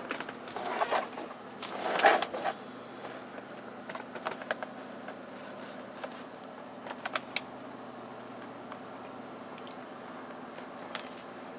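Hands handling the plastic dashboard trim around the steering column: rubbing and scraping for the first couple of seconds, loudest about two seconds in, then a few scattered light clicks over a faint steady hum.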